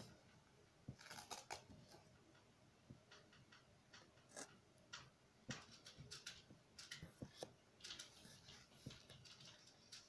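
Faint, irregular small clicks and rustles of felt toy pieces being handled and placed on a felt quiet-book page.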